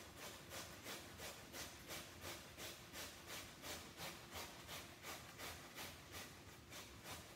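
Raw Yukon potatoes being rubbed by hand down an upright grater: a steady rhythm of faint rasping strokes, about two to three a second.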